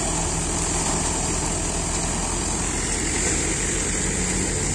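Mahindra tractor's diesel engine running steadily under load, driving a Vardhman thresher whose drum and blower fan whir continuously as they throw out chopped straw.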